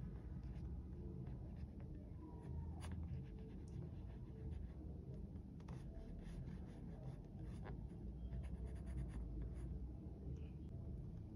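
Graphite pencil sketching on drawing paper: a series of short strokes and light taps, over a low steady hum.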